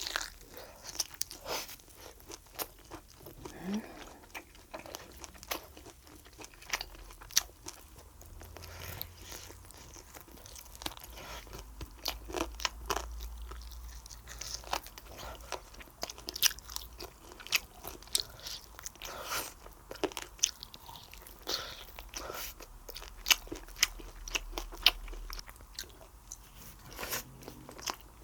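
A person eating close to the microphone: chewing and biting through a meal of spicy braised pork ribs, rolled omelette and kimchi. Irregular sharp crunches and clicks run throughout.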